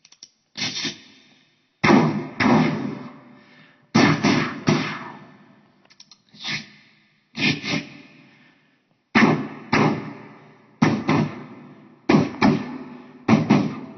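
A man imitating gunshots with his mouth: a string of about fifteen sharp bangs, many in quick pairs, each trailing off over about a second.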